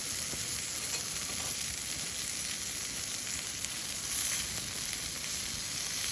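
Slices of beef tongue sizzling in fat on a thin iron griddle, a steady frying hiss with faint crackles.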